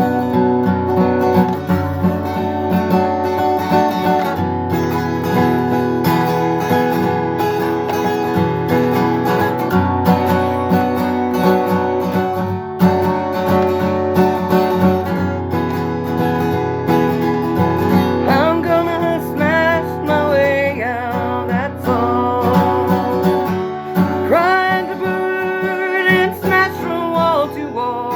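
Acoustic guitar strummed steadily. About two-thirds of the way through, a gliding melody line comes in over it.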